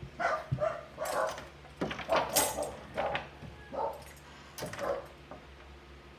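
A dog barking repeatedly, about ten short, irregular barks over five seconds, then stopping.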